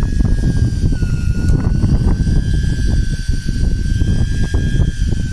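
Boat engine running, a steady high whine over a heavy, uneven low rumble, the whine dropping slightly in pitch about a second in. The boat is being motored into position over the fishing mark.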